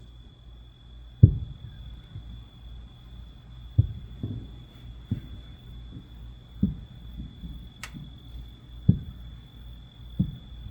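Distant fireworks bursting: about seven dull, low booms at irregular intervals of one to two and a half seconds, each with a short rumbling tail.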